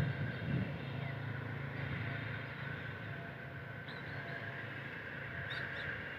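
A steady low engine hum, with a steady higher drone over it and a few faint chirps about four and five and a half seconds in.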